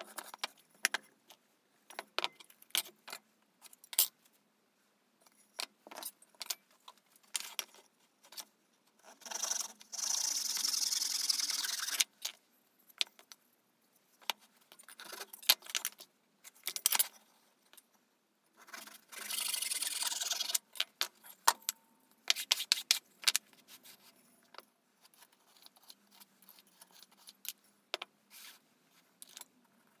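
Handling noise on a wooden workbench: scattered clicks, knocks and light metallic clatter as hand tools and wood pieces are picked up and set down, with two longer scratchy hisses of a couple of seconds each, about ten and twenty seconds in.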